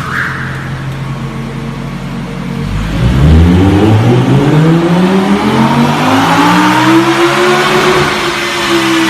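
A performance car's engine ticking over, then about three seconds in it accelerates hard. The engine note climbs steadily in pitch for several seconds before levelling off.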